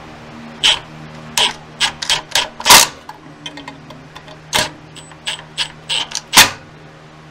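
Hand ratchet clicking in short, irregular runs as it snugs up the oil pump mounting bolts on a Dodge 417 stroker V8, with two sharper metal clicks, one near the middle and one about a second before the end.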